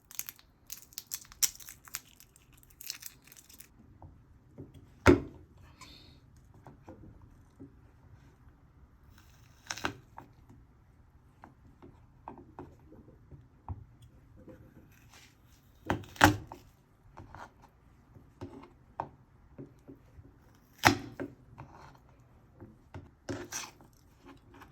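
Food preparation in a kitchen: scattered light clicks, rustling and tearing, with about five sharp knocks a few seconds apart.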